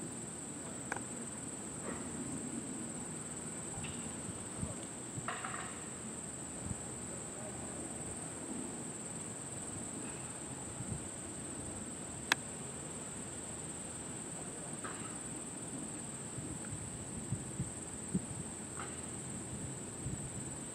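Steady high-pitched insect chorus over a low rumble, with a few faint clicks, the sharpest about twelve seconds in.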